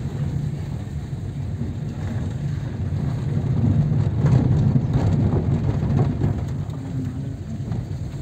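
Car engine and tyre rumble heard from inside the cabin while driving slowly along a street, a little louder in the middle.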